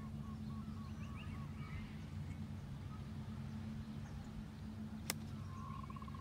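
A golf club striking the ball once on a short pitch shot, a single sharp click about five seconds in. Birds chirp throughout over a steady low hum.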